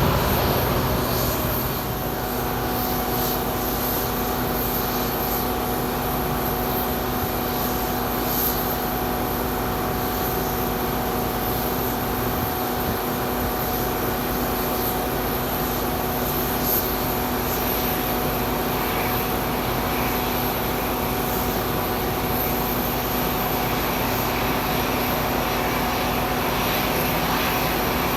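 Aircraft turbine engines running steadily, a high whine and several steady tones over a constant rushing noise.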